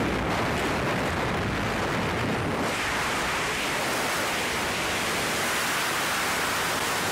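Steady rush of wind and aircraft noise through the open door of a skydiving jump plane in flight, the hiss growing brighter a little under three seconds in.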